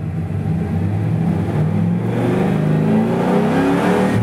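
Rebuilt Ford 351 Windsor V8 in a 1994 F-150, with GT40 heads, a Comp Cams camshaft and a mass-air-flow conversion, idling and then revved about halfway through, its pitch rising to around 4,000 rpm near the end. The ignition timing is not yet fully set.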